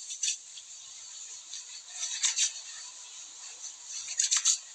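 Palms rubbing together and hands rubbing oil into the skin of the neck: a few short swishing strokes over a steady hiss.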